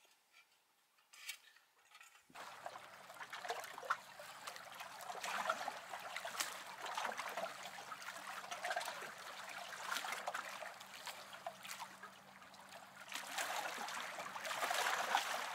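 Water trickling and lapping, with many small splashy clicks. It starts abruptly about two seconds in, after a near-silent opening.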